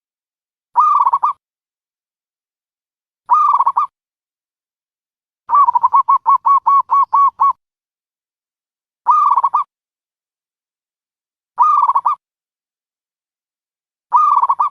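Dove calling: short cooing calls repeated about every two and a half seconds, with a rapid run of about a dozen notes in the middle.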